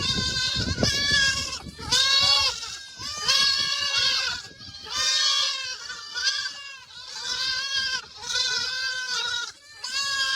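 Goat bleating over and over: a run of loud, wavering calls, each about a second long, with short breaks between them.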